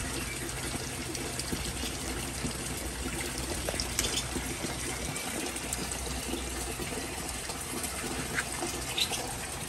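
Steady rush of running water, with a few short high chirps from small birds about four seconds in and near the end.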